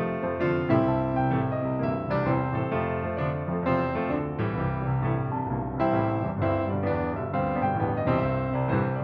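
Background music played on piano: a run of notes and chords that changes every fraction of a second.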